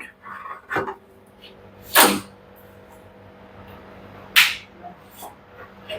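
Washing machine drum and tub parts being handled during disassembly: a few short knocks and scrapes, the loudest about two seconds in and another just past four seconds, over a faint steady hum.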